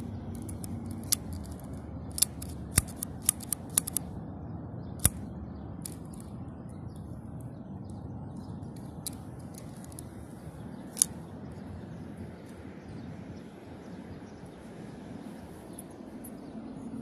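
Plastic clicks and snaps of a Transformers Cyberverse Shockwave action figure's parts being twisted and pegged into place during transformation: a quick run of sharp clicks in the first few seconds, then scattered single clicks, over steady low background noise.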